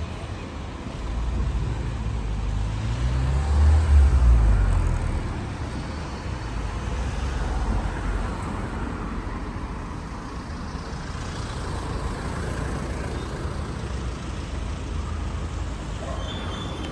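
Street traffic: a motor vehicle passes close by, its engine rumble building to loudest about four seconds in and then fading, leaving a steady hum of traffic.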